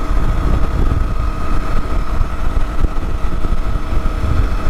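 Motorcycle cruising at highway speed: a steady rush of wind on the microphone mixed with engine and road noise. A thin, steady high whine runs over it.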